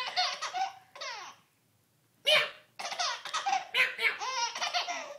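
A baby laughing in high-pitched bursts. After a short pause near the middle comes one loud burst, then a quick run of short laughs.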